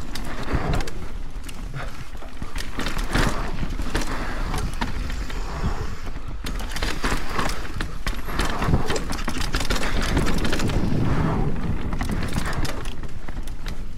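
Propain Spindrift enduro mountain bike descending a rough natural forest trail: tyres rolling over dirt and roots, with a rapid, irregular clatter of knocks from the bike and a steady low rumble of wind on the microphone.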